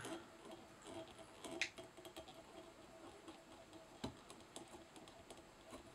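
Faint scattered clicks and light taps of fly-tying tools being handled at the vise, with a sharper click about four seconds in, over a faint steady hum.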